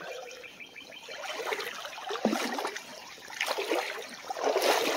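Shallow creek water trickling and rippling over a riffle, rising and falling unevenly, with a brief knock about two seconds in.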